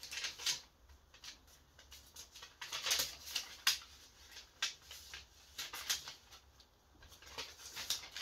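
Sheets of drawing paper rustling and crackling in irregular bursts as they are lifted and flipped over, loudest a few seconds in.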